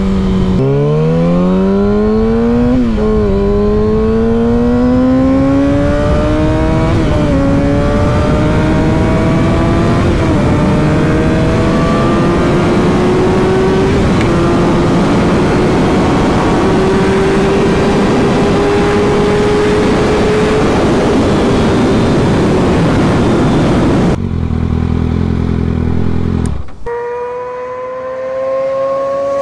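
Kawasaki ZX-6R inline-four engine heard from on the bike, accelerating hard through the gears: the pitch climbs and drops at each upshift about half a second, three, seven and ten seconds in, then climbs slowly and holds at high revs. Near the end it cuts off abruptly to a steady lower engine tone, and then another engine approaches with rising pitch.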